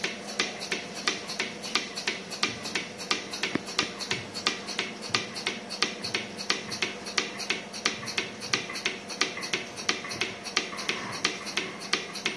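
Milking-machine pulsator on the lid of a stainless-steel milk bucket clicking in a fast, even rhythm as it works the teat cups during milking, over a steady hum.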